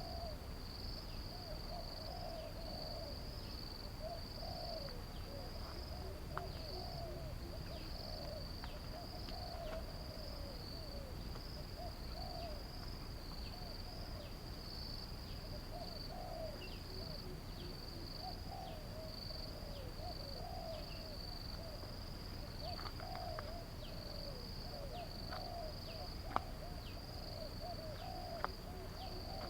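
Riverside nature ambience: a steady high insect drone with repeated short, low warbling animal calls and a low background rumble. Two sharp clicks near the end.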